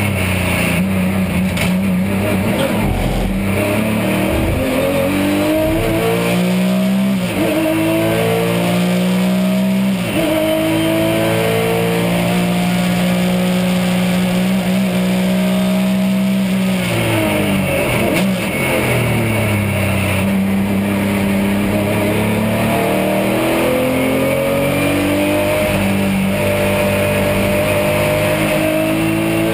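Porsche 996 GT3 Cup's flat-six engine from inside the cockpit. It accelerates hard out of a slow corner with upshifts in the first ten seconds, then holds high revs on the straight. From about 17 s to 20 s it brakes and downshifts with throttle blips, then accelerates again with the pitch rising near the end.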